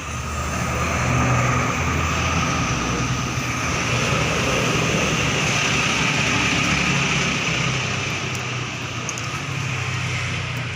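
Compressed air and collected water hissing steadily out of the open drain plug at the bottom of an air compressor's tank, over a low steady hum. The tank is full of condensed water, which is why the compressor's air has gone weak.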